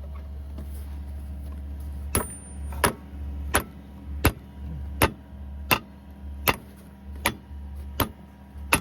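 Hammer blows, metal on metal, on a bulldozer track-frame bolt: about ten sharp, evenly spaced strikes, roughly one every 0.7 seconds, starting about two seconds in. Under them an engine runs with a steady low hum.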